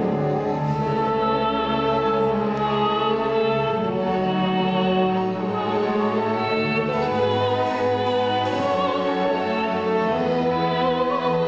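Soprano singing with vibrato over an orchestra's sustained strings.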